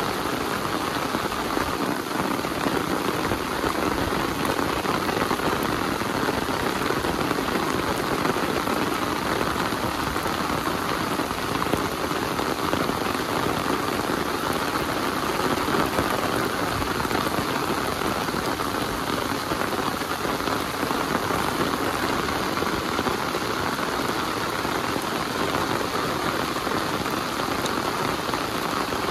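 Heavy rain falling, a steady, even hiss that holds without a break.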